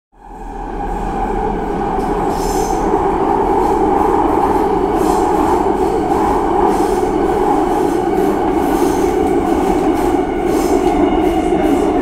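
Subway train running at speed through a tunnel: a steady rumble of wheels on rails that fades in over the first two seconds, with brief faint high wheel squeals now and then.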